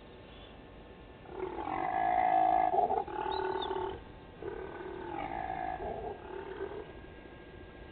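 Impala ram's snarly rutting call: roaring grunts in three bouts. The first, starting a little over a second in, is the loudest, and the last is weaker.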